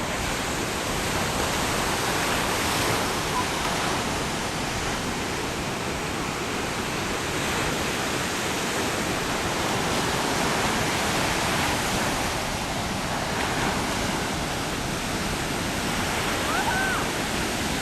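Steady rushing of fast-flowing river water, an even roar that holds at one level throughout.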